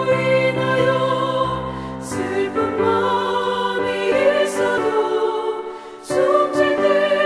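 A Korean hymn being sung, with long held notes in sung phrases. There is a brief lull between phrases about two seconds in and another near six seconds.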